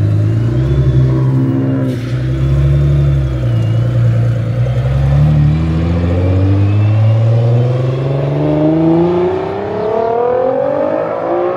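Car engine running loud and low, then rising steadily in pitch through roughly the second half as the car accelerates.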